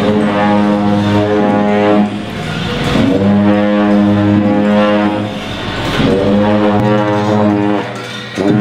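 Music of long, held low notes at a steady pitch, each lasting a couple of seconds, with brief breaks about two, five and a half and eight seconds in.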